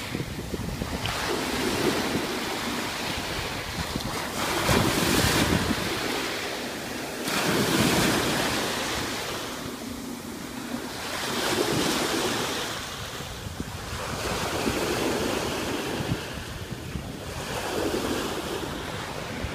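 Ocean surf washing up onto a sandy beach, a rushing hiss that swells and fades every few seconds as each wave comes in, with wind buffeting the microphone.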